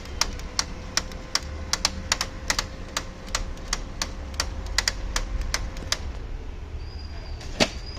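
Brother DCP-L2541DW laser printer running with a steady motor hum and a rapid clicking, about three to four clicks a second, from the worn gears in its duplex tray. The hum and clicking stop about six seconds in, and a single knock follows near the end.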